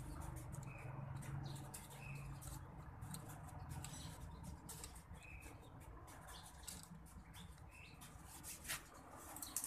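Faint small clicks and scrapes of a screwdriver turning the cover-plate screws on a Yato YT-07298 ratchet head, with a bird chirping briefly about five times in the background.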